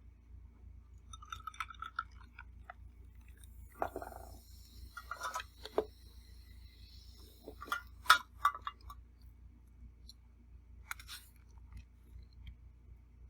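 Eating at a plate: chewing, with a utensil clicking and clinking against the dish several times; the sharpest clinks come a little past halfway.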